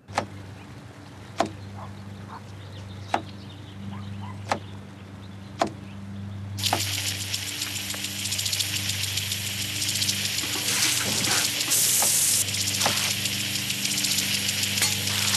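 Kitchen knife chopping a cucumber on a wooden cutting board: about six sharp knocks, one every second or so. A little past halfway a loud steady hiss of spraying water sets in over a low steady hum.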